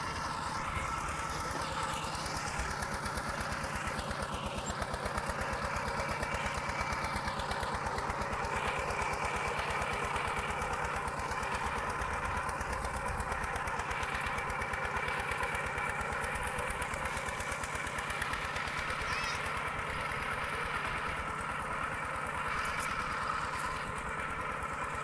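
Walking tractor's Kubota RT120 single-cylinder diesel engine running steadily under load with an even, fast pulse of firing strokes as it works through paddy mud.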